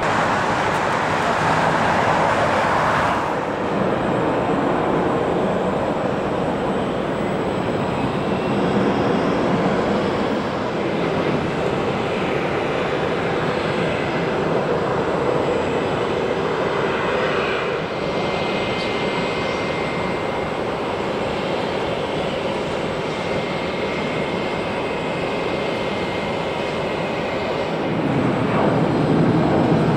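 Business jets' turbofan engines running as the jets roll along the runway after landing, a steady jet-engine noise that shifts in level as one aircraft follows another and grows louder near the end.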